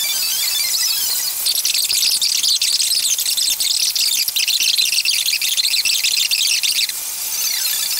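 Crowd and street sound sped up many times over in a time lapse, turned into a dense, high-pitched squeaking chatter. It grows busier about a second and a half in and thins out near the end.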